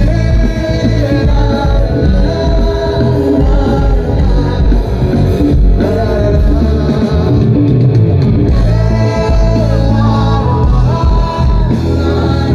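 Live band playing loudly, with singers' vocals over drums and electric guitar.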